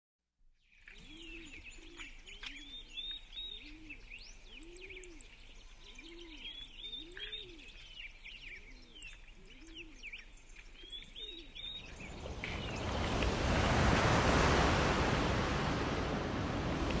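Small birds chirping over a repeated low cooing, one coo roughly every second. From about twelve seconds in, a broad rushing noise swells up and drowns the birds.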